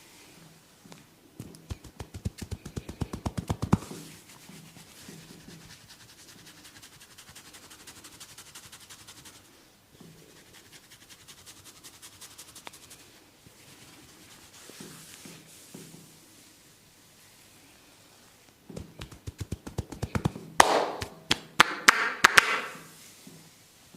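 Head massage: a burst of fast, regular taps of hands on the head starting about a second in, soft scratching of hair and scalp through the middle, then another burst of fast taps and louder cracking strokes near the end.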